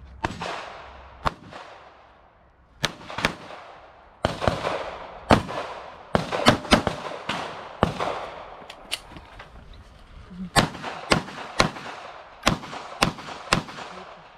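Handgun shots from a small back-up pistol during a timed course of fire: about twenty sharp reports, often in quick pairs and short strings, with brief pauses between groups, each ringing out across the range.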